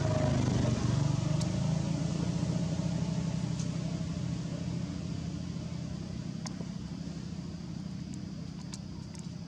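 A steady low engine hum, like a vehicle running, slowly fading away, with a few faint clicks.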